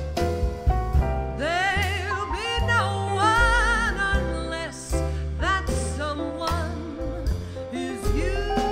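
Small jazz band playing: upright bass, drum kit and piano, with a woman singing held notes with a wide vibrato in the first half.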